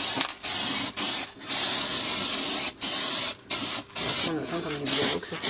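Aerosol spray-paint can sprayed in a string of short hissing bursts with brief pauses between them, some bursts longer than others.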